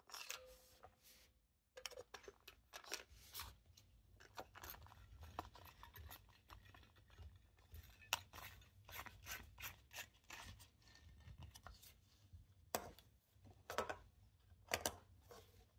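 A plastic voltage detector pen being handled on a stone countertop: faint rubbing, scraping and small clicks, with a few sharper clicks near the end.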